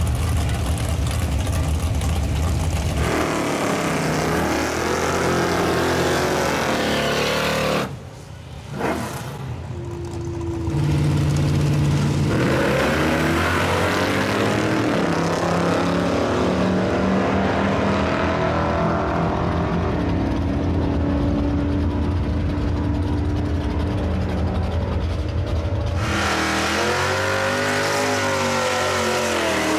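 Chevrolet Chevelle drag car's engine rumbling at the starting line, then revving hard as it launches and accelerating down the drag strip, its pitch climbing in steps through the gears. Near the end a Dodge Dart's engine revs up and down in a smoky burnout.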